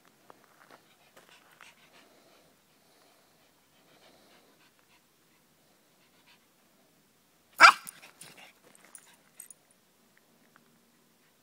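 A pug mix barks once, loud and short, about two-thirds of the way through. Before and after it there are only faint, scattered small sounds.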